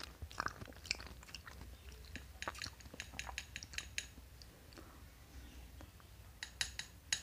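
Plastic spoon scooping soft fruit ice cream, giving scattered light clicks and taps against the bowl, in small clusters around the middle and near the end, over a steady low hum.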